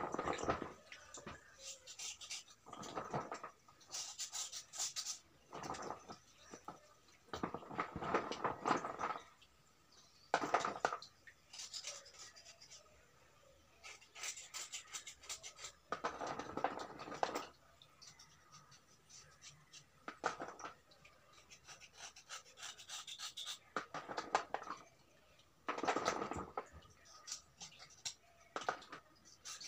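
A steel knife blade scraping the soft, wet surface of a white slate stone in repeated strokes a second or two long, with short pauses between. Near the start, stone pieces are handled in a bowl of water.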